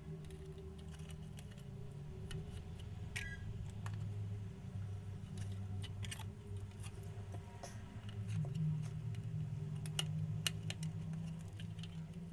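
Scattered light clicks and small metallic taps of tools and parts being handled on a repair bench, over a steady low hum.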